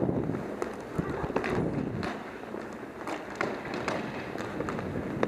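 Roller hockey play: inline skates striding on the rink floor, with scattered sharp clacks of sticks and puck.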